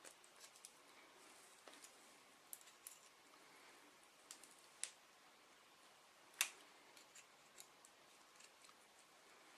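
Near silence broken by faint, scattered small clicks of a large paperclip's steel wire being twisted and pulled through by hand, with two sharper ticks about five and six and a half seconds in.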